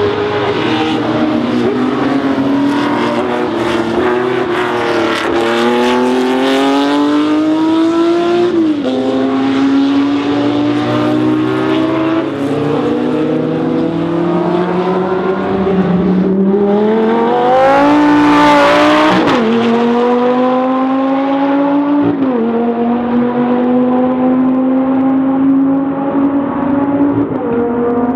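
Racing car engine pulling hard through the gears: the pitch climbs, then drops sharply at each of about six upshifts. It is loudest about two-thirds of the way through.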